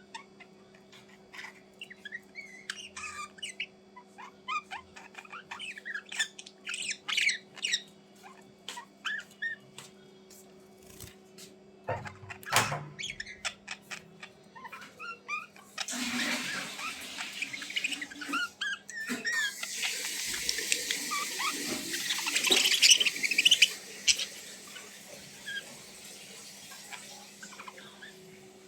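A small bird giving many short, quick chirps and squeaks through the first half. Later a loud rushing, hissing noise runs for about eight seconds, and a low steady hum sits underneath throughout.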